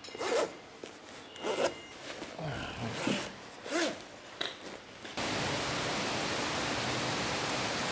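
Dry suits being zipped shut and adjusted: a handful of short zipping and rubbing strokes. About five seconds in, this cuts abruptly to a steady rushing hiss of flowing water.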